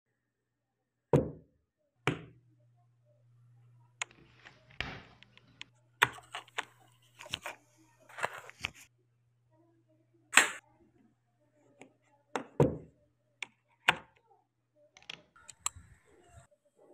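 Irregular sharp clicks and knocks of a PCP air rifle being handled and its parts worked on a cloth-covered table.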